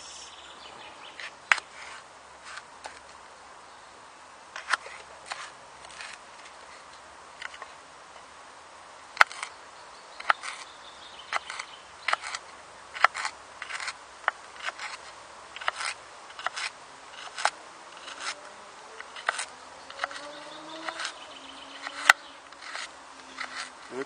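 Richard Kapeller survival knife chopping a carrot on a wooden board: sharp knocks of the blade on the wood, sparse at first and about one to two a second in the second half.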